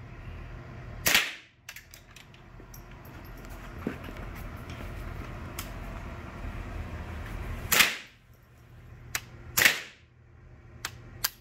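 Palmetto State Armory AR-15 firing .22LR through a .22 conversion bolt: three sharp shots, one about a second in and two close together near the end, about two seconds apart. A few light clicks follow the third shot, where the rifle keeps stopping.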